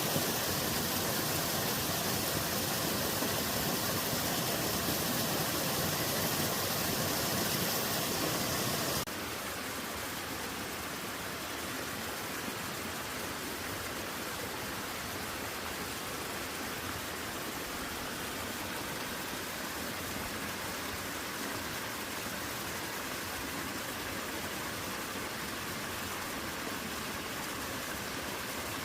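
Water falling and rushing in a mountain-stream waterfall, a steady rush with a deep rumble. About nine seconds in it cuts to a quieter, thinner rush of water with less rumble.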